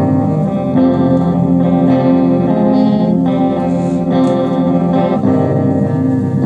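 Guitar playing an instrumental passage of a song, sustained chords changing about once a second.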